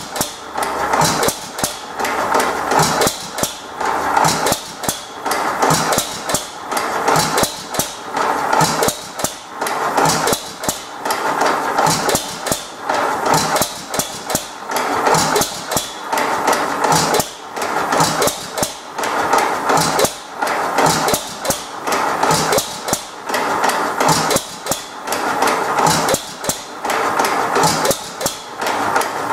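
1914 Economy Model D single-cylinder hit-and-miss gasoline engine running on its first start-up, giving a steady, even run of sharp firing knocks and mechanical clatter.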